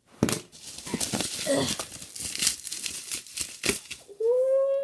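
Plastic bubble wrap crinkling and tearing as it is ripped off a toy dinosaur by hand, in quick rustles and rips for nearly four seconds. Near the end a person hums one steady note.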